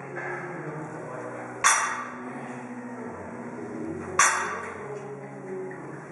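Weights clanking in a gym, two sharp ringing strikes about two and a half seconds apart, over background music.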